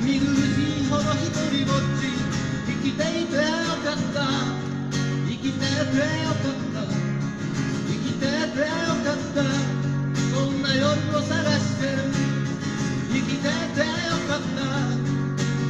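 Acoustic guitar strummed steadily in a live folk-pop song, with a wavering melody line rising and falling over the chords.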